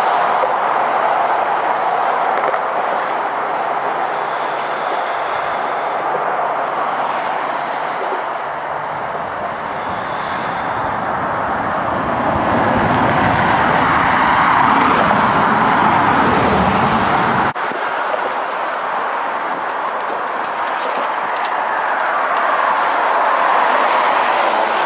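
Freeway traffic passing at speed, a steady rushing noise that swells and fades as vehicles go by. A heavy vehicle adds a deep rumble in the middle, which cuts off suddenly about two-thirds of the way through.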